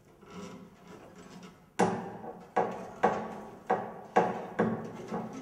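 A run of sharp knocks starting about two seconds in, each with a short ringing decay, at about two a second and unevenly spaced.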